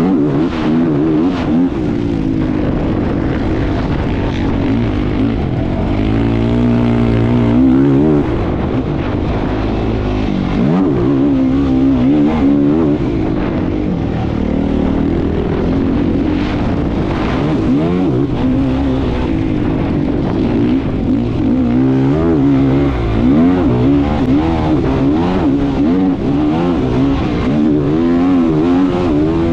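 Competition vehicle engine under hard use, its pitch repeatedly climbing and dropping as it revs up and backs off through gear changes.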